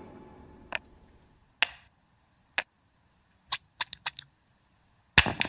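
Toy blocks clacking as they are set one on another, a single sharp knock about every second, then a quick run of several around four seconds in and a louder cluster near the end. A fading sustained note trails off in the first second and a half.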